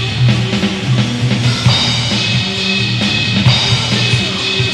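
Live hard rock with guitar and bass over a steady drum-kit beat, and a drummer improvising along on an electronic drum kit.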